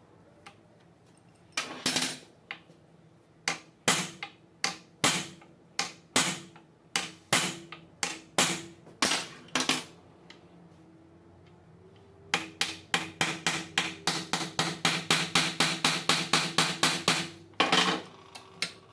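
Hammer blows on a driver bit set in a pole-shoe screw of a tractor starter motor's field-coil housing held in a vise, metal ringing on metal. First comes a slow run of separate blows, then after a short pause a quicker run of about four a second, and one last blow near the end.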